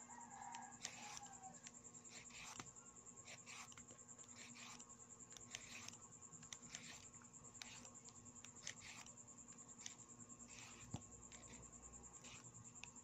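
Faint scraping strokes of a plastic peeler shaving thin strips off a cucumber, short and repeated roughly once a second.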